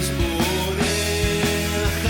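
Rock music: a band playing an instrumental passage with a steady drum beat under held guitar and bass notes.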